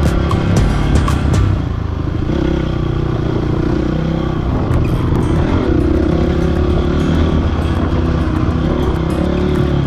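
Dirt bike engine running and shifting in pitch as the bike rides a trail, with sharp clicks in the first second and a half.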